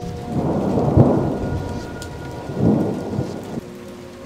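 Thunder rumbling over steady rain, with one long roll that swells about a second in and again near three seconds, then dies away shortly before the end.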